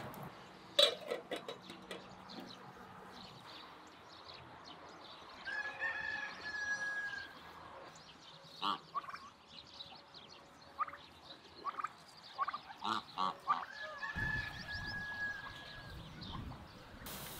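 A rooster crowing twice, each a long held call, the first about five seconds in and the second near the end. A sharp knock about a second in is the loudest sound, and short clicks are scattered between the calls.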